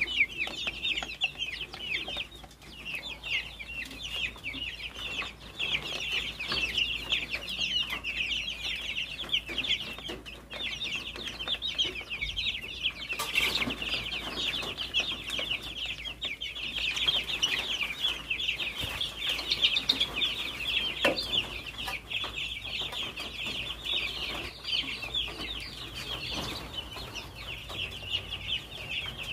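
A crowd of young chicks peeping continuously, with many short, high, overlapping calls.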